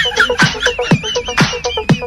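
Electronic dance music with a steady kick drum about two beats a second under a repeating synth note and a wavering high synth line.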